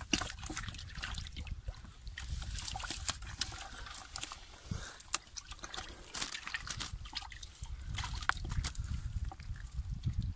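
Wet cast net rustling and dripping as fish are worked out of its mesh by hand, with many small crackles and clicks.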